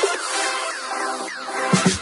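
Electronic dance music: a stretch of held chords with repeated falling sweeps and no bass, then deep bass hits come in near the end.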